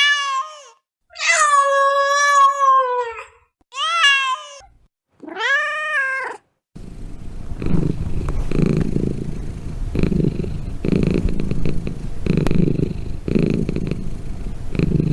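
A domestic cat meowing four times, one long drawn-out meow among them, then purring close up, the purr swelling and easing about once a second with its breathing.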